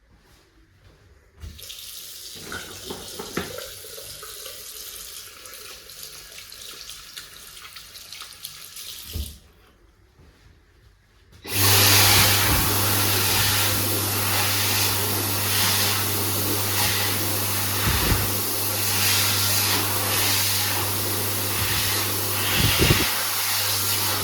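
A sink tap runs for about eight seconds and stops. A few seconds later a Dyson Airblade V HU02 hand dryer starts suddenly and runs loudly to the end, a strong air hiss over a steady low hum.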